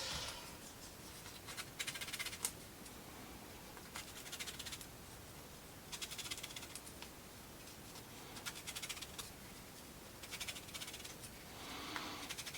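Sandpaper rubbed in quick back-and-forth strokes on a small wooden model part, coming in short scratchy bursts every second or two.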